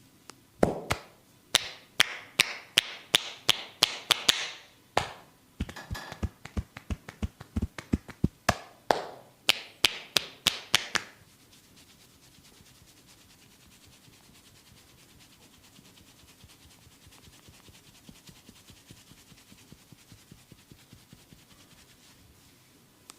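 Percussive massage: a masseur's hands slapping and tapping rhythmically on a person, sharp strokes at about three a second, then, after a brief pause, a faster run of about four to five a second. About halfway through the slapping stops and only faint, soft sounds remain.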